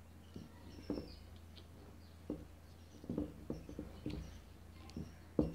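Faint clicks and scratches of a wire end being worked onto a small 12 V battery's terminal by hand, with a few sharper taps about a second in, near the middle and near the end.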